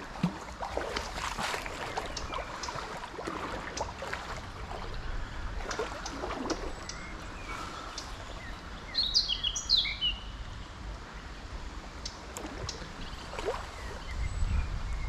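A small bird calling: a quick cluster of sharp, falling chirps about two-thirds of the way through, over a steady low background rush. A low rumble builds near the end.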